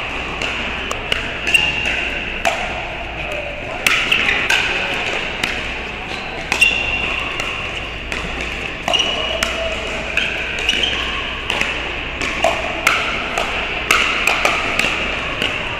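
Pickleball paddles hitting the plastic ball during rallies: repeated sharp pops at an irregular pace, some with a brief ringing ping, from this court and neighbouring courts in an echoing hall.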